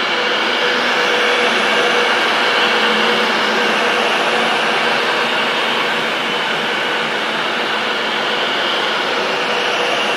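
Virgin Trains Class 390 Pendolino electric train moving slowly past: a steady whirring hum with a faint held tone.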